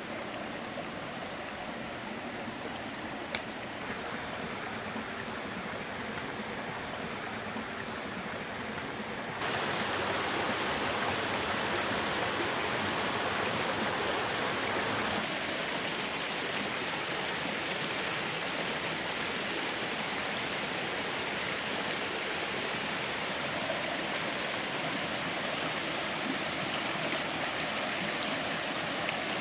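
Stream water running steadily. It jumps louder and brighter about nine seconds in and eases back a little about fifteen seconds in. A single faint click comes about three seconds in.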